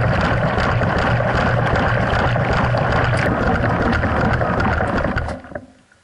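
Water rushing and churning inside a washing machine tub, heard from within the tub, over a steady low hum; the noise dies away about five seconds in to near silence.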